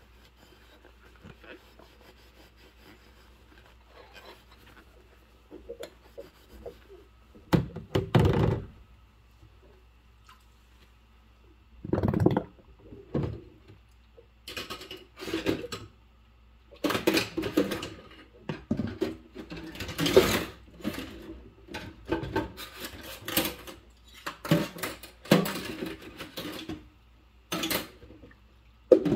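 Rubber-gloved hands washing dishes in a sink of soapy water. Quiet at first, then irregular sloshing and splashing with knocks of dishes and utensils under the suds, getting busier about halfway through.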